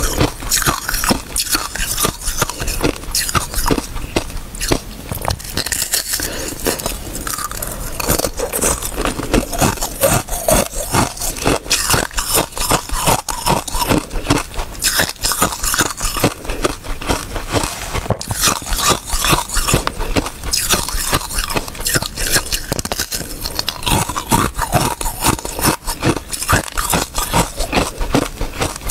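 Ice set with basil seeds being bitten and chewed: dense, rapid crunching and crackling of ice in the mouth, without pause.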